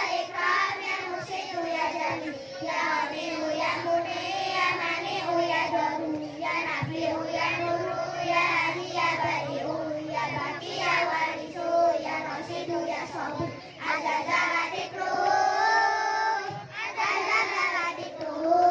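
Three young girls singing an Islamic devotional song together into microphones, with one long held note about two thirds of the way through.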